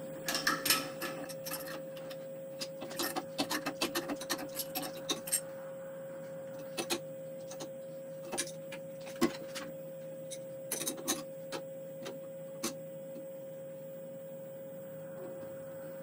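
Wrench on the drawbar of a Tormach PCNC 1100 mill, loosening the R8 collet: a quick run of small metallic clicks and clinks for the first five seconds or so, then scattered single clicks, over a steady hum.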